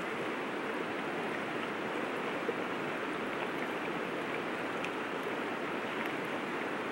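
River water flowing, a steady even rush with no break.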